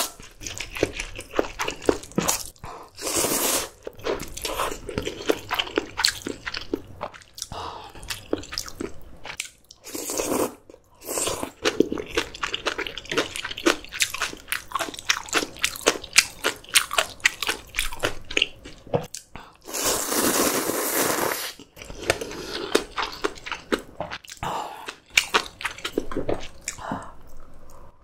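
Close-miked chewing of crunchy fresh kimchi (geotjeori): rapid crisp crunches, densest in the middle stretch, broken by a few longer noisy sounds, the longest about twenty seconds in.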